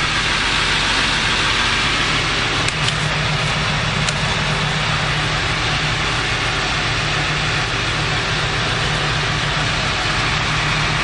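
Motor vehicle running steadily: a constant low engine hum under a heavy, even hiss of road and wind noise.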